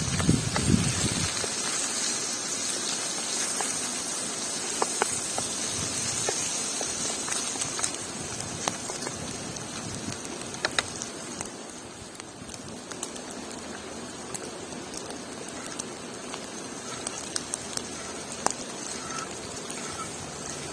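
Wood campfire crackling: scattered sharp pops over a steady hiss, with a brief low rumble at the start.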